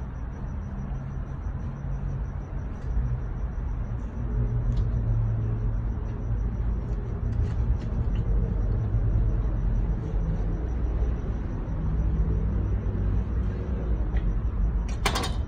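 Steady low mechanical rumble with a hum, from a running motor or engine, with a faint high whine over it. A few faint ticks, and one sharp click near the end, when the knife is set down on the plastic cutting board.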